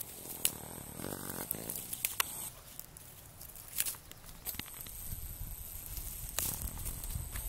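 Fiddlehead fern shoots snapped off by hand, a few faint scattered snaps with light rustling of dry grass, over a low rumble that grows toward the end.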